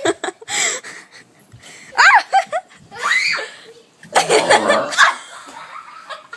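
Laughter and giggling in several short bursts, with the longest and roughest burst about four seconds in.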